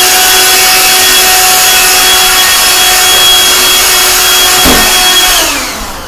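Vacuum cleaner running loudly and steadily with a whine over a rush of air. It is switched off about five seconds in, and its pitch falls away as the motor winds down.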